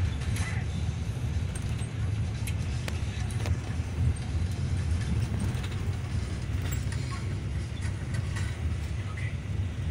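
Yutong bus heard from inside its cabin while driving: a steady low rumble of engine and road noise, with a few light clicks and rattles.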